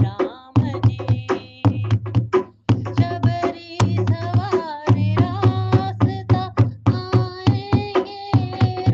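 Hindi devotional song: a voice singing over a steady, quick percussion rhythm.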